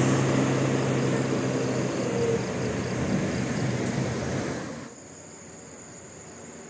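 Road traffic noise: a steady rushing of passing vehicles that drops suddenly about five seconds in to a quieter background hiss.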